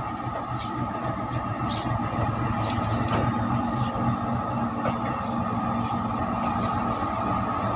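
WDG4G diesel-electric locomotive's engine running steadily as it moves slowly with flat wagons during shunting: a low hum with a steady whine above it and a few faint clicks, growing slightly louder.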